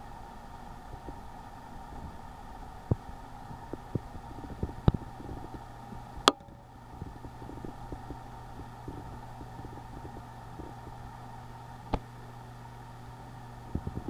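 Steady low background hum with scattered faint clicks and taps, and one sharper click about six seconds in.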